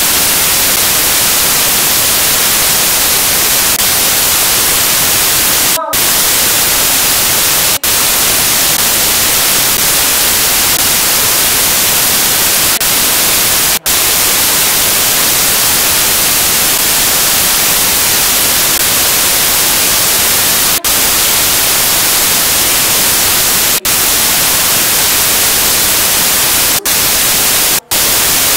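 Loud, steady static hiss with no other sound, cut by about seven split-second dropouts.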